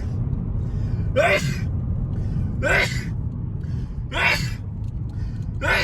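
A person sneezing aggressively: short, loud gasping bursts about every second and a half, each a breathy blast with a pitch that rises and falls.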